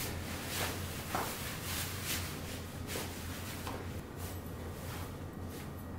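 Clothing rustling in a series of short swishes as trousers are pulled on and a top is pulled over the head, over a low steady hum.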